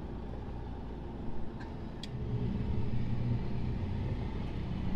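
Motorhome's engine heard from inside the cab as it creeps forward in the queue, a low steady drone that grows a little louder about two seconds in as it pulls on. A couple of light clicks come just before.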